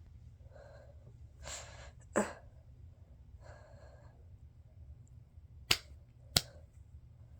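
A person breathing heavily in and out, with a short sharp click about two seconds in and two louder sharp clicks, about half a second apart, near the end.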